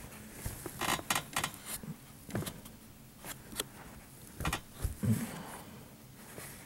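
Plastic ClimbUp bed bug interceptor being repositioned by hand under a bed leg: scattered light knocks, clicks and scrapes of plastic against the leg and carpet.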